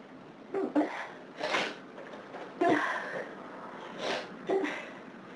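A person sneezing repeatedly in a hay-fever attack: about five short, sharp sneezes and catching breaths in quick succession.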